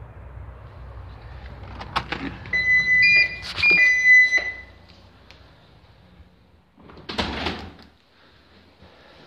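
Door clicks and a run of electronic beeps from an entry or alarm keypad, the tones stepping between two pitches, then a short rush of noise about seven seconds in as a door swings to.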